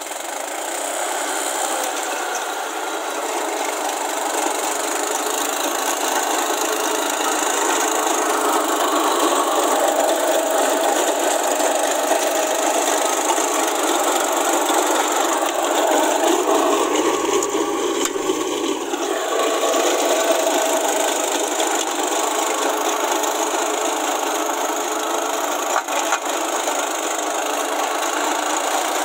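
Swaraj 12 hp mini tractor working a rear-mounted rotary tiller through dry, weedy soil: the tiller blades churning dirt and stubble over the engine, a steady noise that grows louder over the first few seconds.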